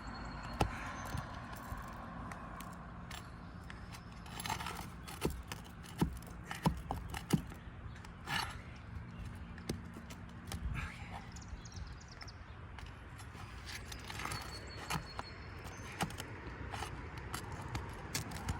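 Roofing nails being worked out from under shingles with a hand tool: irregular metallic clicks and taps with short scrapes.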